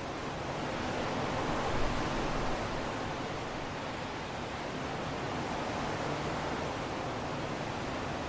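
Wind blowing, a steady rushing noise that swells a little between one and two and a half seconds in.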